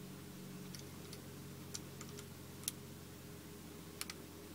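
Light plastic clicks of LEGO bricks being handled and pressed together, a scattering of small ticks with a sharper click a little past halfway and a quick pair near the end, over a faint steady low hum.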